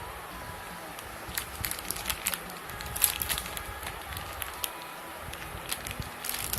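Light, irregular crackling and clicking, the sound of handling something close to the microphone, in scattered clusters of short ticks.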